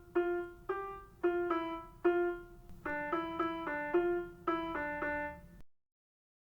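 Keyboard in a piano voice playing a melody of single notes and chords, without singing; it cuts off abruptly about five and a half seconds in, leaving silence.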